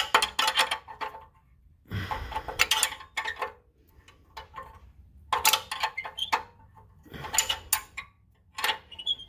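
Adjustable wrench clinking and scraping on an exhaust bolt and pipe, in short bursts of rapid metallic clicks with pauses between them, as a tight bolt is worked off a little at a time.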